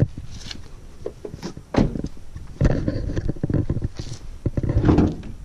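Toyota Auris driver's door opening, then a few thumps and rustles as a person climbs out of the car and moves to the front.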